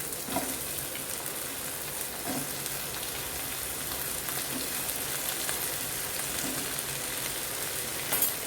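Brinjal pieces frying in hot oil in a pan with onion and ginger-garlic paste: a steady sizzle. A few light knocks come through it, with a sharper one near the end.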